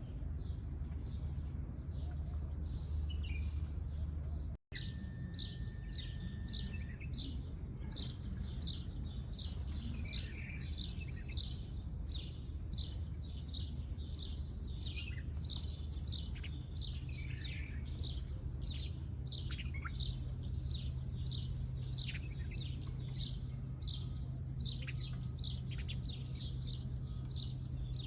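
Sparrows chirping together: a fast, continuous run of short, sharp chirps over a steady low rumble. The sound cuts out for an instant about five seconds in.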